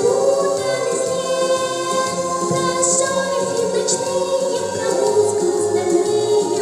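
High voice singing long held notes with vibrato over instrumental accompaniment.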